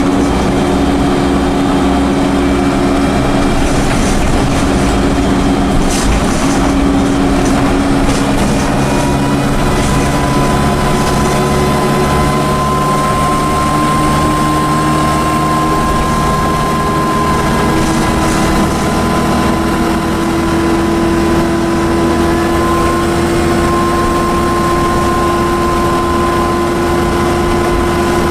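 Dennis Dart bus's Cummins diesel engine running under way, with a steady high-pitched turbocharger whine that comes in about nine seconds in and holds, while the engine note rises slowly.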